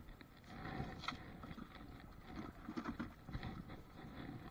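Faint, irregular knocks and clicks of gear being handled on a small fishing boat, over a low steady rumble.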